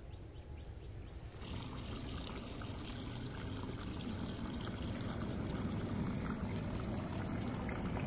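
Water trickling and running steadily, as from a small spring or ditch outflow, louder from about a second and a half in and slowly growing.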